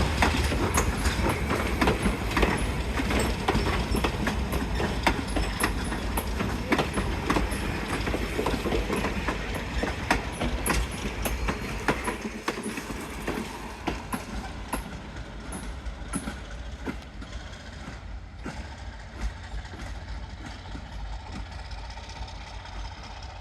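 ALCO RS-3 diesel locomotive working uphill, its engine rumbling under load with sharp clicks and clacks from the wheels on the rail joints. The sound fades steadily as the locomotive draws away.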